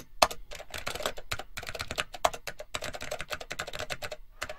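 Keys clicking rapidly and irregularly, as in typing, with a brief pause near the end.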